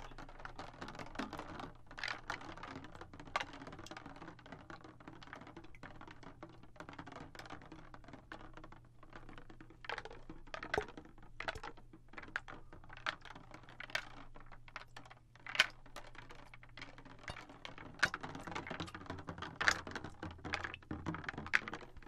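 A clear plastic tube filled with water and small red objects, tilted and handled close to the microphone: many irregular clicks and taps against the plastic, with water moving inside.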